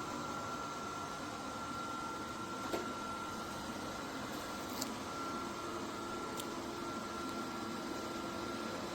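Ultenic D10 robot vacuum running: a steady whirring motor noise with a constant high whine, and three short light clicks.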